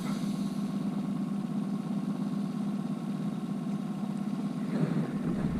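Boat's outboard motor running steadily, an even engine hum with no change in speed.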